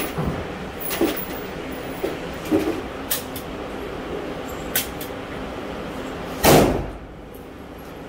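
Gunshots from shooters in the lanes of an indoor shooting range, heard muffled through the booth partitions: several scattered sharp reports, with the loudest and longest a little over six seconds in.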